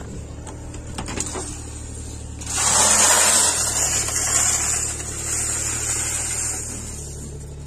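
LuAZ-969's air-cooled V4 engine idling steadily, with a few sharp clicks of the door handle and latch in the first second or so. From about two and a half seconds in, a loud rushing hiss lies over the idle for several seconds.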